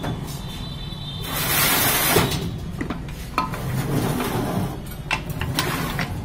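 Mahindra Bolero gearbox casing being fitted down over the gear shafts: a scraping slide of metal about a second in, then scattered light clinks and knocks of metal on metal as it is seated.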